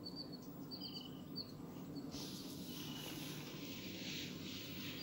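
Faint background sound: small birds chirping now and then in short high notes over a low steady hum, with a soft hiss joining about two seconds in.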